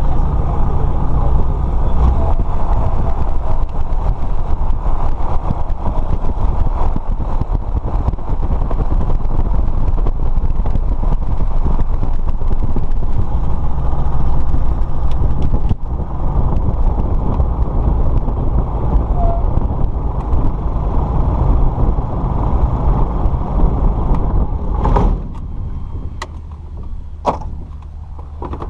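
Light aircraft's piston engine and propeller running steadily, heard inside the cockpit, then cutting off about 25 seconds in, followed by a few sharp clicks.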